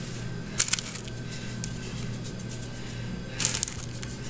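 Hands rubbing and sprinkling ground cumin over marinated pork in a metal roasting pan: two short rustling bursts, about half a second in and again near the end, over a steady low hum.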